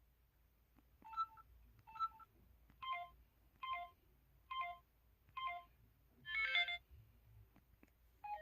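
An MS600 mobile phone's keypad button sounds: a series of short two-note electronic tones, about one a second, as keys are pressed. The seventh tone is longer and fuller than the rest.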